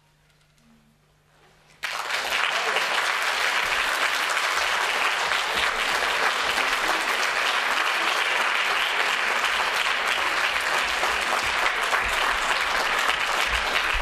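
Audience applauding: after nearly two seconds of hush the clapping breaks out suddenly and holds steady.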